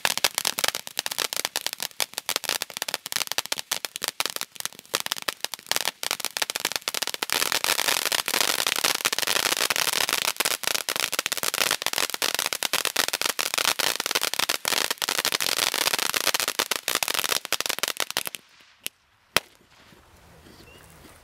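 Smiley Face Fountain ground firework burning, giving a dense, continuous crackle as it sprays sparks. The crackle stops abruptly near the end, followed by two single sharp cracks as it burns out.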